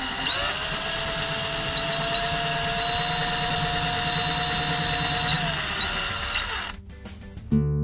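Cordless drill running steadily with a high motor whine as a small bit pre-drills a pilot hole into particle board. The whine rises slightly in pitch, then stops a little before the end. Strummed acoustic guitar music begins right at the end.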